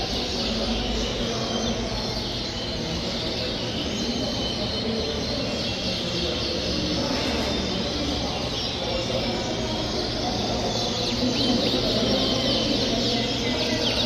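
Many caged Yorkshire canaries chirping and singing at once: a dense, unbroken mix of quick high chirps and trills, over a steady low background hum.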